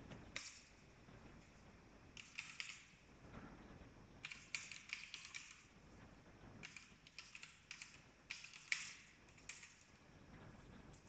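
Faint computer keyboard typing in several short bursts of keystrokes with pauses between them.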